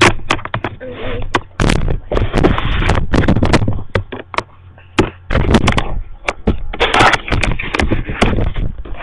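Rustling and a rapid, irregular run of knocks and clicks from handling right at the webcam's microphone.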